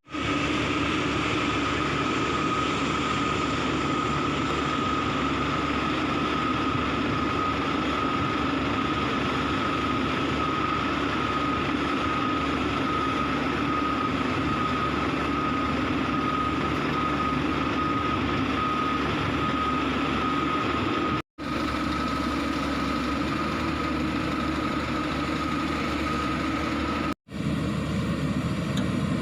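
Hyundai 140W-9 wheeled excavator's diesel engine running steadily under working load, with a steady high whine over it. The sound drops out briefly twice near the end, and after the second break the whine is gone.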